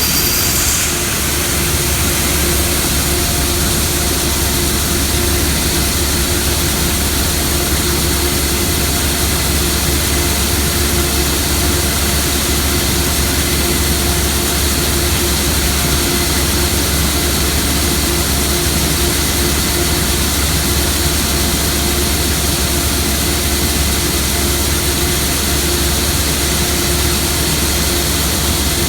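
Case IH 8230 combine running steadily while harvesting corn: a loud, constant mechanical drone with a low rumble and a steady whine that hold unchanged throughout.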